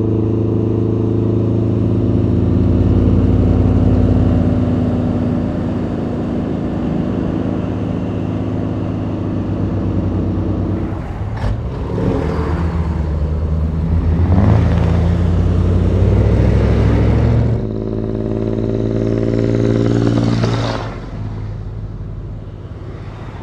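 Vintage diesel semi-truck engines running at road speed, a steady drone. About eleven seconds in, the sound changes to trucks driving past one after another, each swelling and fading as it goes by.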